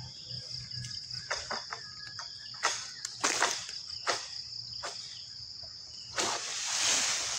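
Steady high drone of crickets or cicadas, over a series of sharp scraping strokes and then a longer rustle near the end: the long-pole sickle (egrek) working at the frond base in an oil palm crown.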